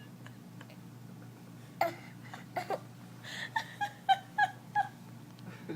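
A small child giggling: a couple of short high-pitched squeaks, then a quick run of about six short laughs.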